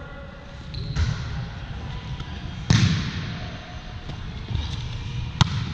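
Volleyball being struck during a rally on an indoor hardwood court: three sharp hits, the loudest about two and a half seconds in, ringing in the large gym hall.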